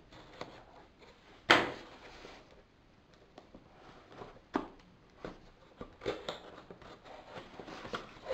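A cardboard parcel being cut open and handled: a knife working through the packing tape, then scraping, rustling and scattered knocks from the box and its flaps, with one sharp knock about a second and a half in, the loudest sound.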